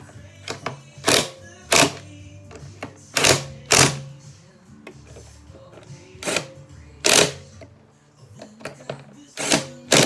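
A series of sharp, loud clacks, about eight, mostly in pairs, over quiet background music.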